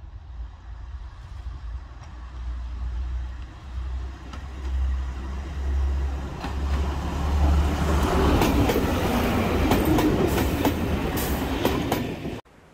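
British Rail Class 101 diesel multiple unit approaching and running past close by: a low diesel drone grows louder, then from about halfway the wheels click over the rail joints as the cars go by. The sound cuts off suddenly near the end.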